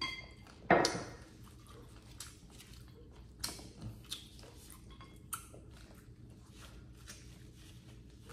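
Eating sounds at a table: quiet chewing and scattered light clicks of a spoon and dishes. A brief ringing clink comes at the start, and a louder short noise about a second in.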